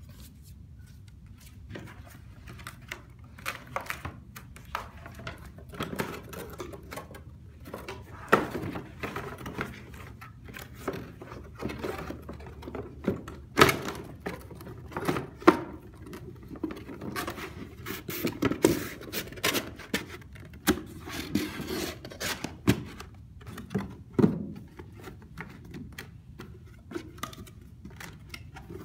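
Corrugated cardboard box being folded and assembled by hand: irregular scrapes, creaks and taps as the panels are bent up along their creases and the flaps tucked in, with a few sharper knocks of cardboard against cardboard and the table in the middle stretch.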